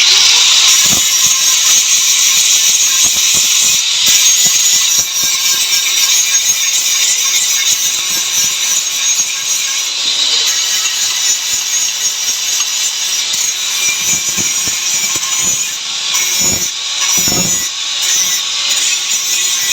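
Power tool cutting or grinding metal on a motorcycle mono-shock absorber: a loud, continuous, harsh noise with no clear rhythm, with a few short lower strokes near the end.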